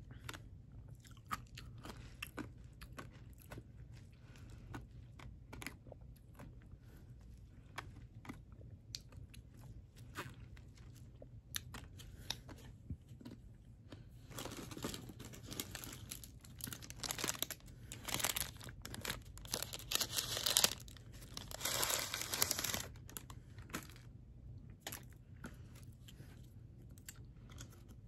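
Close-up chewing and wet mouth clicks. Past the middle, a louder stretch of several seconds of rustling and crinkling of paper food packaging.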